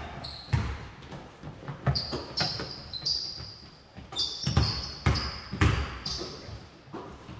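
A basketball bouncing on a hardwood gym floor in irregular thumps during play, with short high-pitched sneaker squeaks in between.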